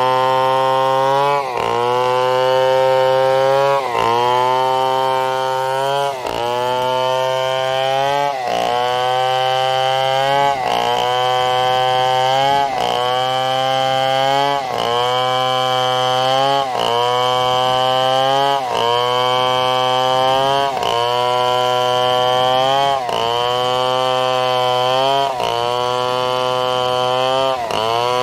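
Two-stroke chainsaw cutting through a coconut trunk. It runs continuously, its pitch dipping sharply and climbing back about every two seconds.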